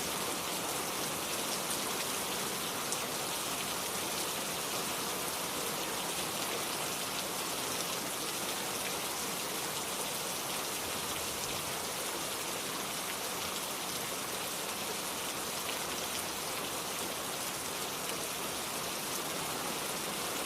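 Steady rain falling, an even hiss with many small drop ticks and no change in intensity.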